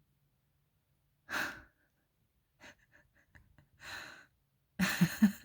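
Breaths and sighs: a short breathy exhale, a second softer one, then a louder breathy stretch with a few low voiced pulses near the end.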